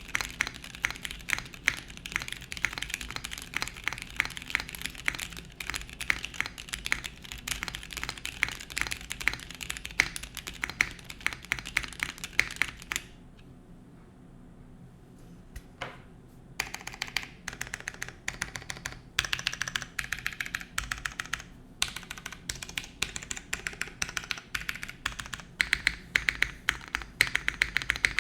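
Typing on a 60% mechanical keyboard with stickered Gateron Clear linear switches on a polycarbonate plate in a dual O-ring mount, with TX stabilizers. Fast continuous keystrokes stop for about three seconds midway, broken by a single key press, then resume in runs with short gaps.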